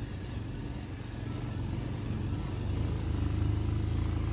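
Motorcycle engine running steadily at low revs while riding over a rough dirt track, getting a little louder a couple of seconds in.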